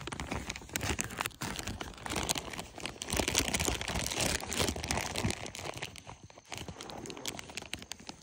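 Plastic snack bag of Chex Mix Muddy Buddies crinkling as it is handled and opened, a dense crackling that grows louder through the middle and thins out near the end.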